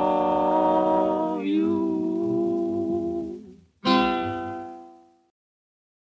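The closing bars of a 1939 vocal-harmony swing record: voices hold a long final chord that shifts once, then a last guitar chord is struck and rings out, fading to silence.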